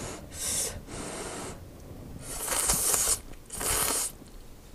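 Udon noodles being slurped in several long, airy draws with short pauses between them.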